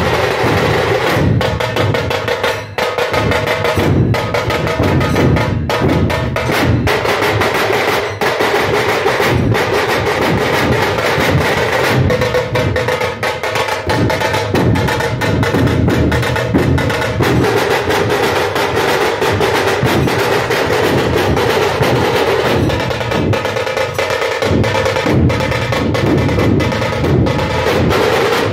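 A dhol pathak ensemble of many large rope-tensioned dhol drums beaten together in a fast, continuous, loud rhythm.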